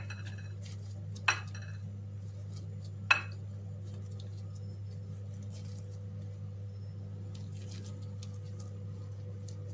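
Kitchenware clinking: two sharp, ringing clinks about a second and three seconds in, then a few faint light taps, over a steady low hum.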